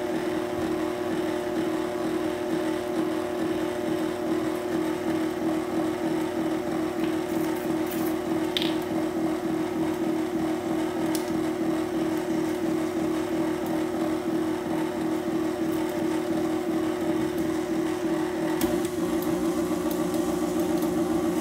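Electric mixer running steadily on its lowest 'stir' speed, a constant motor whir, as it works the last cup of flour into pound cake batter.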